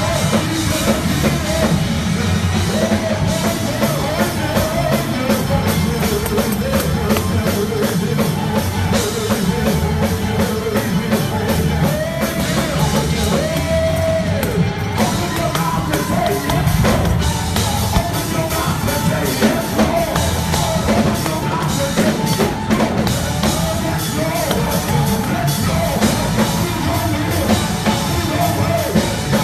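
Live gospel praise music from a church band led by a drum kit, with a voice singing and shouting over it.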